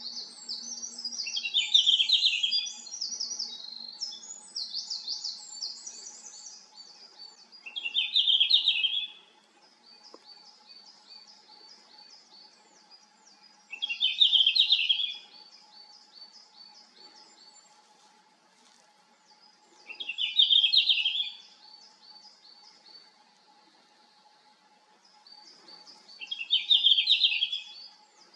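Male red-flanked bluetail singing: five short, clear warbling phrases, one about every six seconds. Behind them another bird keeps up fast, high, repeated notes.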